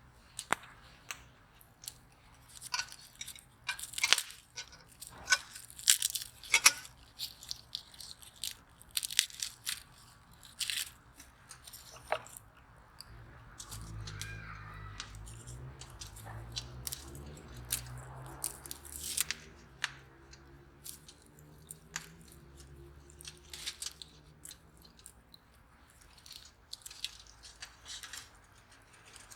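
Dry, papery garlic skins crackling and tearing as cloves are peeled by hand: irregular sharp crackles, busiest in the first half. A low drone rises in the middle and fades out a few seconds later.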